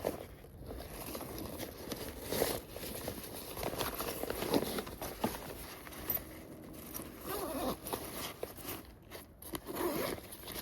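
Rustling and crinkling of a hiking backpack's fabric as it is handled, with scattered short clicks and zip-like sounds coming and going in uneven swells.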